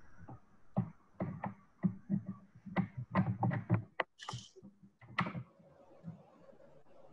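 A run of irregular light knocks and taps, with a brief hiss about four seconds in.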